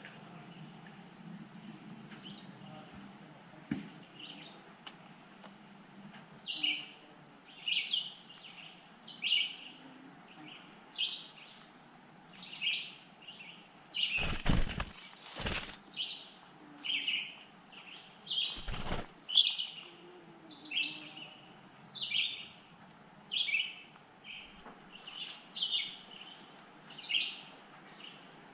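Eastern phoebes at the nest: short chirping calls repeated about once a second. They are broken midway by two or three loud fluttering bumps of wings against the microphone and nest, a few seconds apart.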